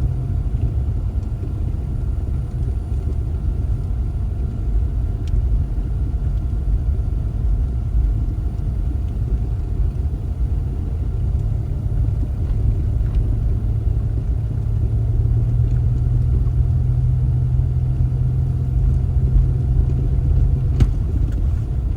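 Car running with a steady low rumble and a constant engine hum throughout.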